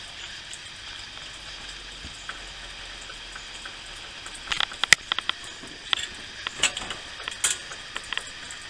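Newly lit wick-type kerosene heater burning with a steady faint hiss while the flame spreads around the wick. A run of sharp clicks and ticks comes in the middle.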